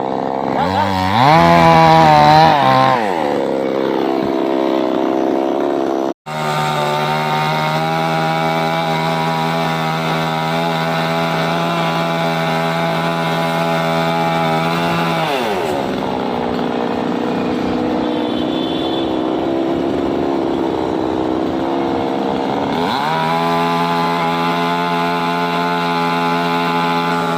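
Petrol chainsaw engine running, revved up and back down at first, then held at a steady high speed. It drops to a lower speed about halfway through and speeds up again near the end, with a momentary break about six seconds in.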